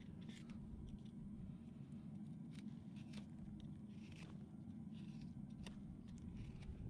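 A hand tool scraping the underside of a horse's front hoof in short, irregular strokes, about eight in all, over a steady low hum.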